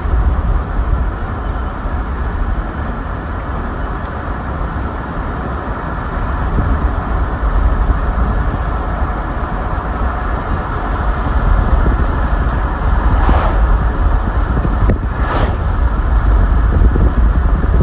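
A vehicle driving on a highway: a steady low rumble of road and engine noise, with two brief hissing swells about two seconds apart near the end.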